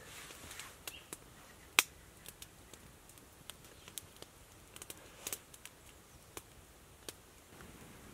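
Small campfire of split kindling crackling, with scattered sharp snaps and pops at an uneven pace, the loudest about two seconds in and another pair a little after five seconds.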